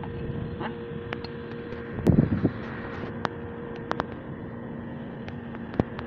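Handling noise from a new metal washing-machine wash motor being positioned by hand: a short clunk about two seconds in, followed by a few light clicks, over a steady low hum.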